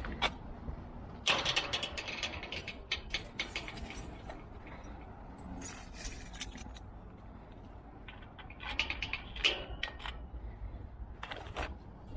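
Keys and metal lock hardware clinking and rattling in several short bursts of clicks, as they are handled.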